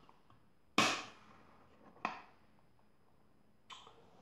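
Sharp knocks of a small hard box being handled on a wooden tabletop: a loud one about a second in and a lighter one about a second later, with a faint rustle near the end.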